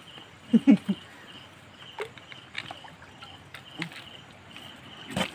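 Hands digging and splashing in shallow water and mud at a mud crab burrow: scattered small splashes and scrapes, with a short man's exclamation about a second in. Insects chirp steadily in a faint high tone.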